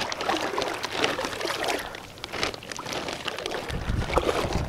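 Shallow sea water splashing and sloshing as hands work a fishing net and take a flounder out of it: irregular small splashes and drips. Wind starts buffeting the microphone about three and a half seconds in.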